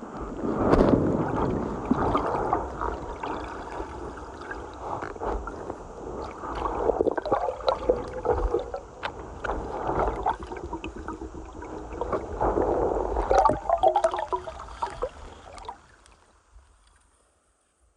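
Muffled gurgling and sloshing of creek water with scattered knocks and clicks, as picked up by a phone that has fallen into the water. The sound dies away about two seconds before the end.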